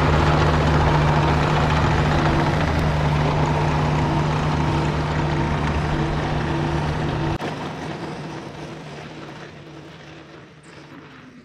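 Yanmar mini excavator's diesel engine running steadily at full throttle as the machine travels at top speed on its tracks. The sound drops suddenly about seven seconds in, then fades away.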